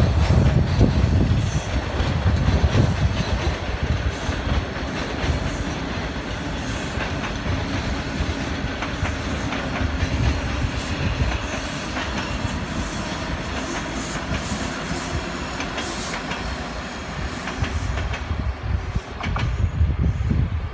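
TTC subway train passing on surface tracks: steady wheel-and-car rumble with repeated clicks of the wheels over the rail.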